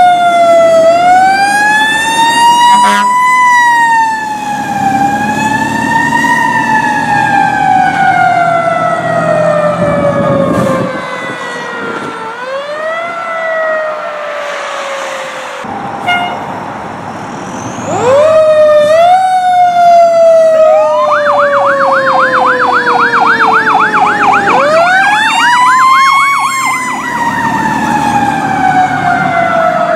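Fire engine sirens on responding fire apparatus: loud wails that rise and then slowly fall, several overlapping, switching to a rapid warbling yelp for a few seconds past the middle, over the rumble of the trucks' engines.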